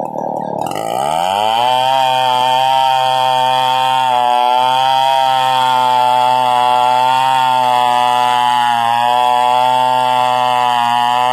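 Stihl two-stroke chainsaw revving up about half a second in, then running steadily at high speed with a slight waver in pitch.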